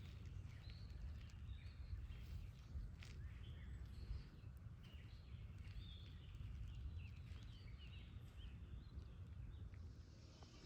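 Faint outdoor ambience of several small birds chirping and calling, over a steady low rumble.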